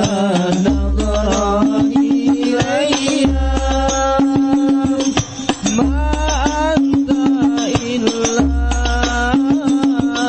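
Devotional sholawat-style singing: one voice sings a wavering, ornamented melody over instrumental accompaniment. A steady held tone runs underneath, and a deep bass note returns every two to three seconds.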